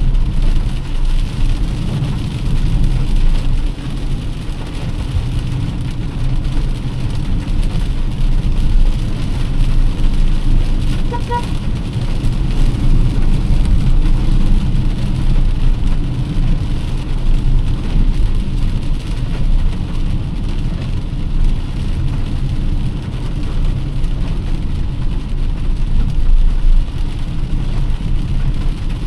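Car driving in heavy rain: steady low road and engine rumble with an even hiss of rain. A brief beep about eleven seconds in.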